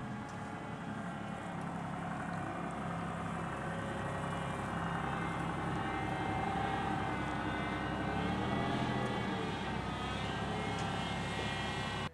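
LAV-25 light armored vehicle's Detroit Diesel two-stroke V6 diesel engine running steadily as the vehicle drives off the beach into the water. Its pitch wavers a little past the middle.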